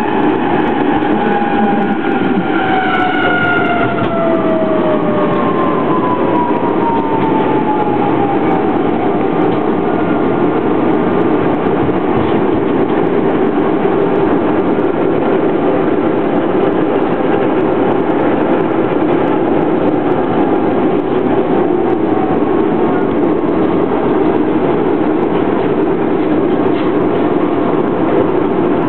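A narrow-gauge (1000 mm) tram running along its track, heard from inside: a steady loud rumble of wheels on rail and running gear. A whine falls slowly in pitch over the first several seconds.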